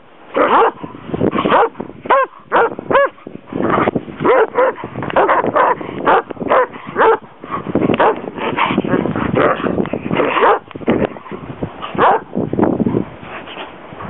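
Deerhounds barking and yipping in play: a dense run of short barks throughout, with a few higher, bending yelps about two to three seconds in.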